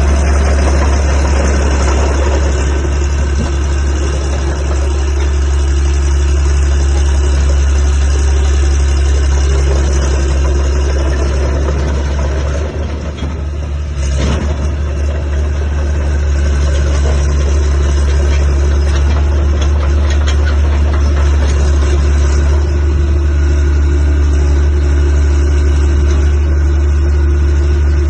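Caterpillar D3C Series III LGP bulldozer's diesel engine running steadily, with a brief drop in level about halfway through before it picks up again.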